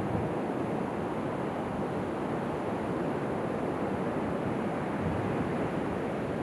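Ocean surf breaking and washing up a sandy beach: a steady rush of waves with no single crash standing out.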